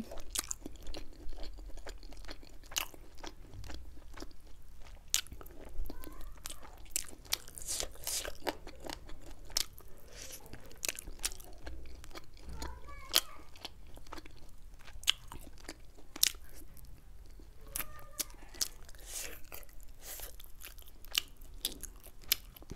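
Chewing and biting on saucy chilli chicken wings, with many irregular sharp crunches as the meat is pulled from the bone.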